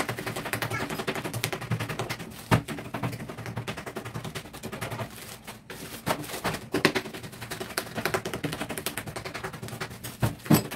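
Plastic bags of soybeans being handled and pricked with a thin skewer: rapid crackling and clicking of thin plastic, with a few sharper, louder snaps. The holes are air vents punched in the bagged soybeans so the tempe can ferment.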